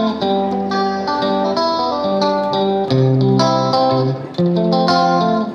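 Background music: a melody of plucked notes, changing every fraction of a second, over sustained low bass notes.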